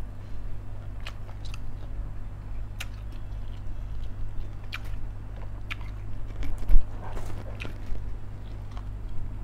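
Close-up sounds of a man eating a Thai chicken dish by hand: wet chewing, lip smacks and mouth clicks at irregular moments over a steady low hum. One louder low thump comes a little past halfway.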